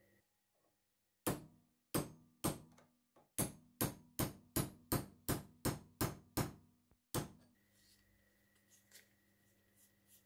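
A hammer striking a punch to drive a new stainless steel spring pin into a breast drill's gear: about fifteen sharp, ringing metal-on-metal blows that start slow and quicken to about three a second, then stop.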